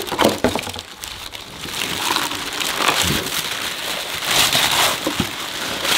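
White tissue paper rustling and crinkling as it is pulled and crumpled off a nonstick baking tin. A steady crackly rustle that grows louder about a second and a half in.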